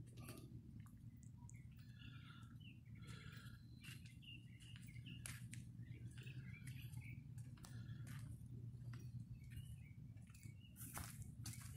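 Faint, scattered bird chirps over a steady low hum, with a few sharp clicks, one of the loudest near the end.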